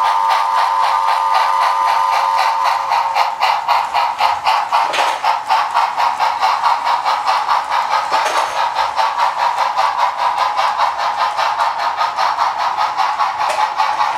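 Onboard sound decoder of a Bachmann Spectrum HO-scale 4-6-0 ten-wheeler steam locomotive (factory Tsunami sound) playing rhythmic steam chuffing through its small speaker, about four to five chuffs a second, as the train runs. A steady high tone sounds alongside over the first few seconds.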